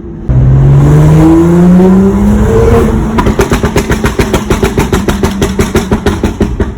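BMW M2's turbocharged straight-six revved hard, its pitch rising for about two and a half seconds, then the exhaust popping and crackling rapidly on the overrun as the revs drop.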